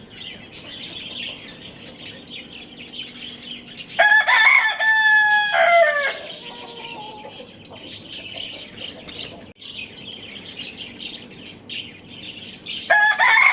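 A rooster crowing: one full crow of about two seconds, about four seconds in, and another starting near the end. Small birds chirp rapidly underneath throughout.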